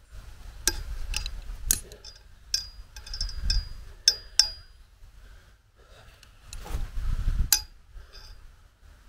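About a dozen sharp metallic clinks, some ringing briefly, as a hand tool knocks against a galvanised steel pole and the metal fitting on it, with wind rumbling on the microphone underneath.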